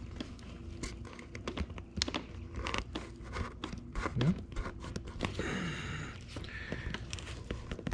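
Close handling of wiring and insulated crimp connectors on cardboard: a busy run of small clicks, taps and crinkling as a tight male connector is pressed into its female with pliers.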